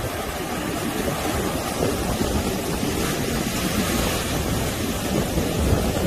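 Rough sea surf breaking and washing up a sandy beach: a steady, even wash of noise, with wind buffeting the microphone as a low, fluctuating rumble underneath.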